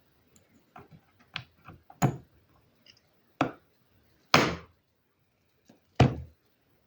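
Plastic clicks and clacks of a mechanical keyboard's spacebar keycap being worked by hand: a few light clicks, then four sharp clacks over the next few seconds, the third one longer.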